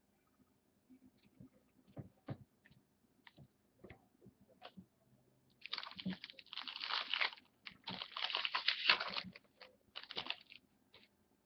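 Trading cards being handled: scattered light clicks and taps, then about five seconds of dense rustling and crinkling from about halfway in.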